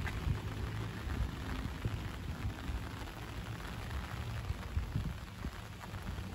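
Light rain falling, a steady hiss with scattered small drop ticks, over an uneven low rumble with occasional soft thuds.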